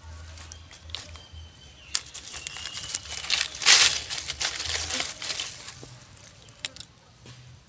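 Dry leaf litter and twigs rustling and crackling as a young long-tailed macaque scrambles and forages on the ground, with scattered clicks and the loudest burst of rustling about three and a half seconds in.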